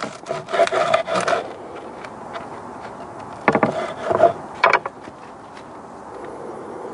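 Close handling noise: rubbing and scraping with small clicks, then a few light knocks about three and a half to five seconds in, as bread is picked up and broken for tasting.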